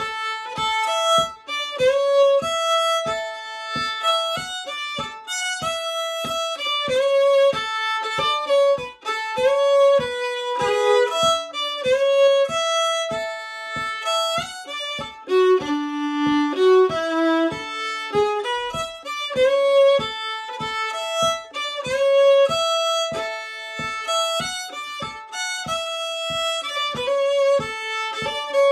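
Solo fiddle playing a traditional session tune at a slow pace, one bowed note after another. A soft steady tap keeps time underneath, about twice a second.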